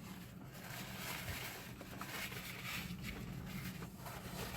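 A person chewing a big mouthful of an Impossible Burger, faint over a steady low background hum.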